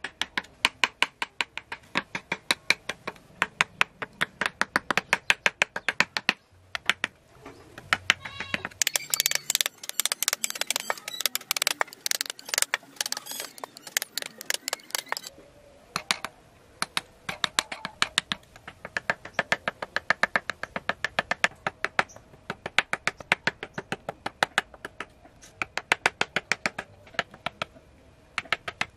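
Woodcarving chisel being struck with a hammer in rapid, even taps, about three to four a second, as it cuts into a wooden board. The taps come faster and closer together for several seconds in the middle.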